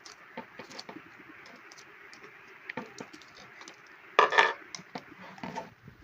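Light clicks and knocks from handling a corded electric drill, with a louder burst of clattering a little past four seconds in and another shortly before the end.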